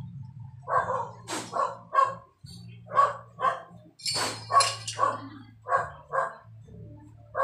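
A dog barking repeatedly, short barks often coming in pairs, over a low steady hum.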